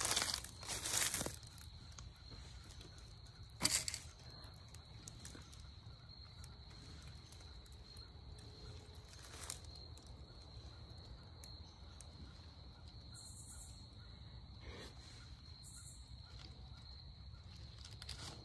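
Dry fallen leaves crunching and rustling in a few short bursts, the loudest about a second in and again near four seconds, like steps through leaf litter. A faint steady high tone runs underneath.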